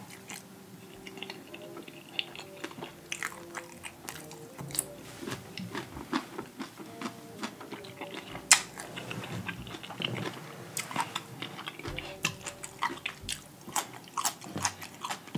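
A person chewing a mouthful of food close to the microphone, with wet smacking: a steady run of short clicks, one much louder smack about eight and a half seconds in.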